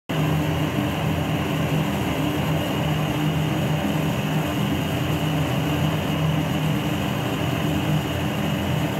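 Gas torch burning with a loud, steady rushing noise and a low hum, heating the jaw of a steel wrench.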